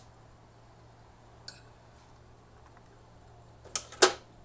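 Sharp clicks and knocks of hard parts on an HP LaserJet 1018 being handled: a faint one about a second and a half in, then two louder ones close together near the end, the last the loudest, over a low steady hum. No grinding is heard.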